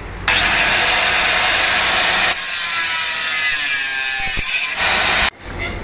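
Angle grinder's abrasive cut-off wheel grinding through a bimetal band saw blade: a loud, steady, hissy grinding that starts a fraction of a second in and stops suddenly about half a second before the end.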